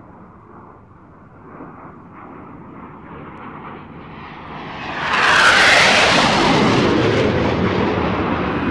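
Cessna Skymaster propeller engine noise in flight, low at first, building from about four seconds in and swelling suddenly to a loud rushing drone about five seconds in as the aircraft passes close, then easing slowly.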